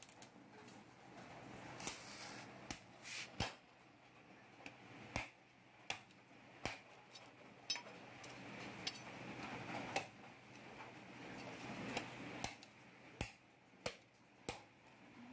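A knife chopping into the husk of a green coconut: a string of sharp, irregular chops, roughly one a second.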